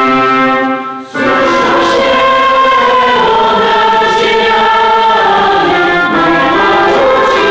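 Mixed choir singing a Polish Christmas carol (kolęda) a cappella: a held chord breaks off about a second in, then the next phrase starts and the voices sustain through.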